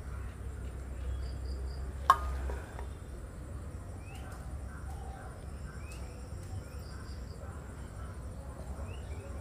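Quiet room tone with a steady low hum and faint high chirping, broken by one sharp click about two seconds in.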